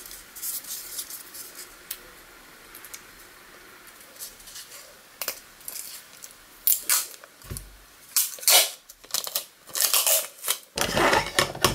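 Brown packing tape being pulled off the roll in a run of short rasping rips, mostly in the second half, with rustling of hands on a tabletop.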